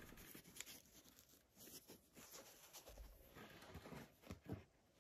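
Near silence, with faint, irregular rustling and a few small clicks from fingers handling a foam-rubber dauber tip.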